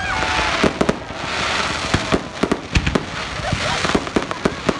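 Fireworks display: a rapid, irregular string of sharp bangs from bursting aerial shells over a continuous hiss.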